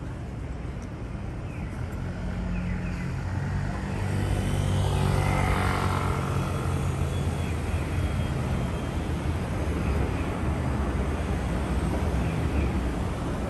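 Street traffic: a motor vehicle's engine humming close by over road noise, growing louder over the first four seconds or so and then holding steady.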